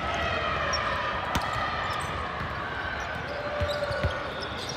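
Balls thudding on a hard gym floor: a few separate knocks over steady background hall noise.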